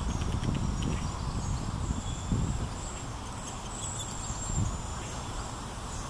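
Uneven low rumbling noise on the microphone as the camera is moved. Faint, thin, high-pitched bird calls sound through it in the middle.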